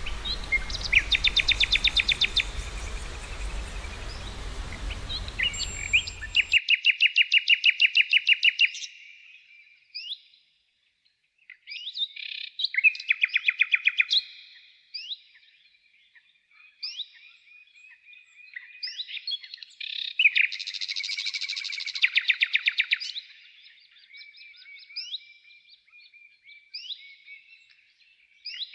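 Songbirds singing: several fast, buzzy trills of evenly repeated notes, each lasting one to three seconds, with short sliding chirps between them. For the first six seconds or so there is a hissy outdoor background with a low hum, which cuts off abruptly, leaving the birds alone.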